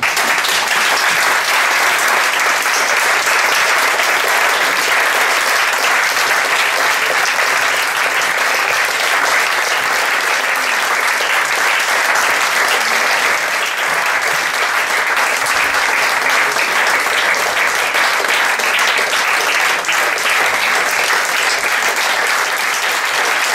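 Theatre audience applauding, the clapping of many hands starting suddenly and holding steady.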